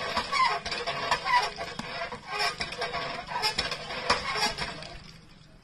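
Hand pump squeaking and clanking with each stroke of its handle, about once a second, as an elephant pumps it with its trunk to draw water; the pumping stops near the end.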